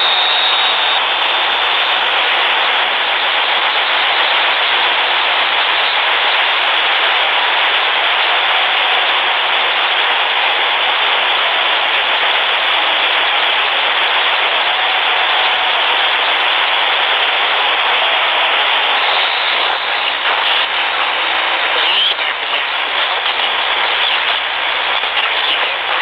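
Shortwave radio receiver hissing with steady static, no station coming through. About two-thirds of the way in, the hiss starts to waver, with a few faint crackles near the end.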